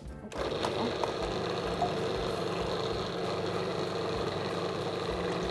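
Food processor motor running steadily, its blade mixing flour, butter and water into shortcrust pastry dough; it starts about a third of a second in.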